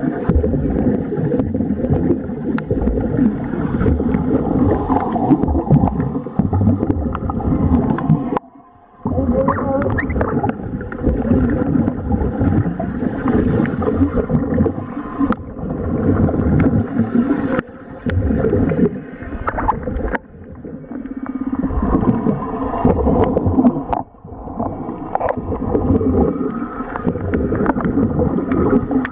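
Air bubbling and gurgling through a hose-fed diving bubble helmet, heard underwater as a continuous irregular churn that briefly stops about eight seconds in.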